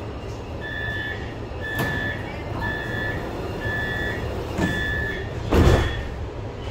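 Metro train doors closing: a door-closing warning sounds five evenly spaced beeps, about one a second, while the doors slide shut. They meet with a thud near the end, the loudest sound here, over the train's steady low hum.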